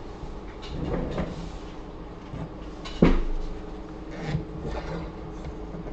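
Handling noises on a repair bench: several knocks and some rubbing or scraping, the loudest knock about three seconds in, over a steady faint hum.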